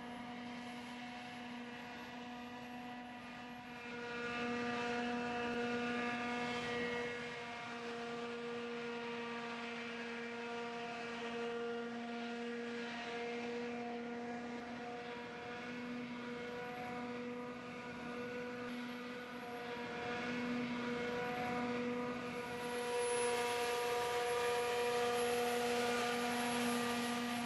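Cormorant ducted-fan VTOL drone hovering and flying low, its fans giving a steady pitched hum. The hum grows louder about four seconds in and again near the end.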